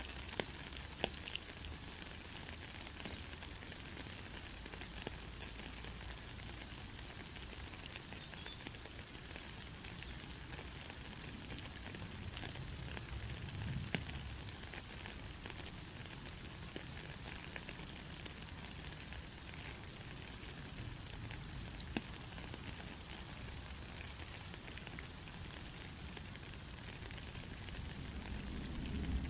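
Steady hissing white noise with faint scattered crackles and ticks and a low rumble underneath.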